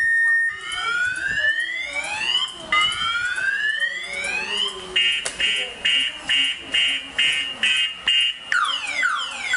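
Electronic alarm siren of an RFID motorcycle lock platform sounding after the platform is alarmed, cycling through its tones: two slow rising whoops, then a high beep pulsing about twice a second, then fast falling sweeps near the end.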